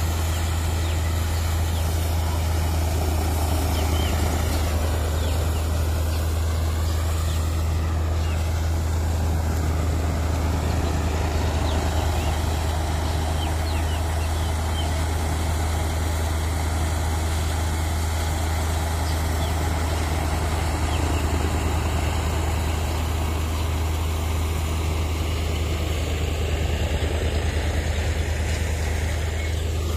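Tractor-powered wheat thresher running steadily while being fed wheat bundles: the tractor engine and the thresher's drum and blower make an even, unchanging low drone.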